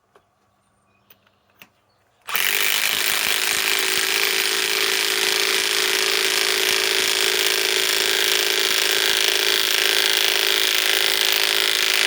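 Milwaukee M18 Fuel 3/8-inch compact impact wrench hammering steadily for about ten seconds as it drives a lag screw, starting about two seconds in after a few light clicks.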